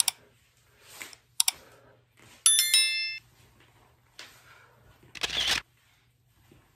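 A short metallic ring of several clear tones, like a bell or clinking metal, about two and a half seconds in, amid a few small clicks. Near the end comes a short, loud burst of noise.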